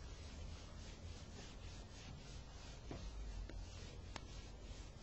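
Faint writing on a board: a quick series of short scratchy strokes with a few light ticks.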